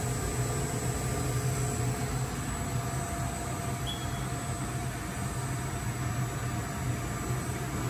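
High-speed film blowing extrusion machine running: its inverter-driven three-phase main motor and gearbox give a steady low hum over an even mechanical noise, with a few faint steady tones above.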